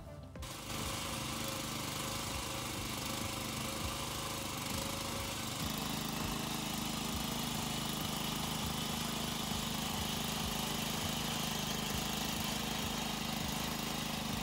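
Small petrol garden tiller (rotary cultivator) engine running as it tills soil. About five seconds in it speeds up and holds a steady, higher pitch.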